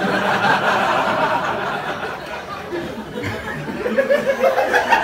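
Small audience laughing at a joke, loudest in the first couple of seconds, easing off, then picking up again in scattered laughs near the end.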